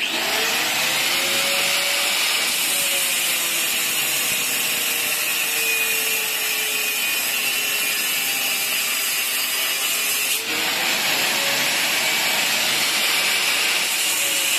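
Handheld angle grinder with a cutting disc starting up and cutting through a steel rod, disc grinding on metal. About ten seconds in the sound dips for a moment, then the motor's whine rises again as the cut goes on.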